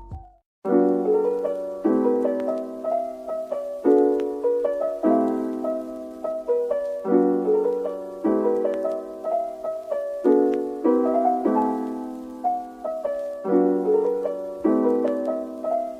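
Background piano music: a gentle piece of chords struck about once a second, starting just after a brief silence.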